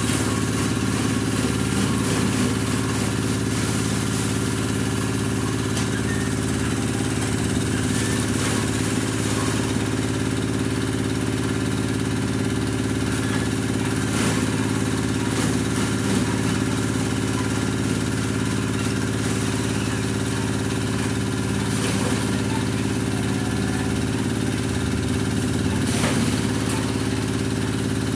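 Small stationary engine running steadily at constant speed, driving a grass chopper (chaff cutter) as grass is fed through it, with a few brief sharp crackles along the way.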